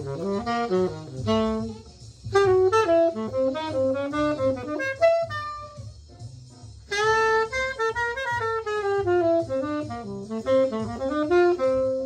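Tenor saxophone playing fast, winding bebop phrases, with a brief break about two seconds in and a softer passage around the middle before it picks up again.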